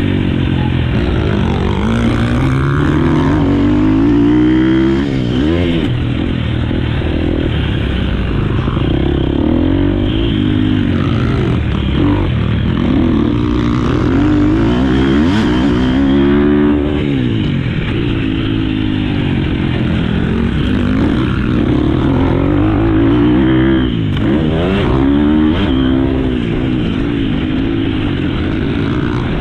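2023 Husqvarna FC 250 four-stroke single-cylinder motocross engine being ridden hard, its pitch climbing and dropping again every few seconds as the throttle is opened and closed.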